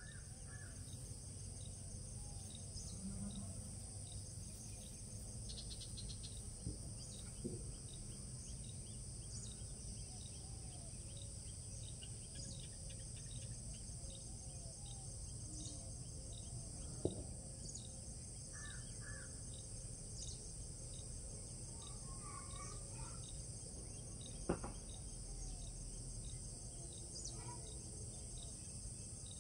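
Insects keep up a steady high-pitched drone over faint regular ticking, with scattered short bird calls. Two sharp clicks stand out, one past the middle and one later on.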